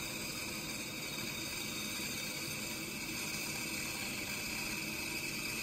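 Bandsaw running with its blade cutting steadily through a thick laminated hardwood block in a resaw cut: an even hiss with a steady high whine.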